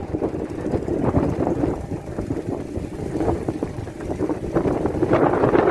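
Wind buffeting the microphone over a low, steady rumble, with the gusts louder near the end.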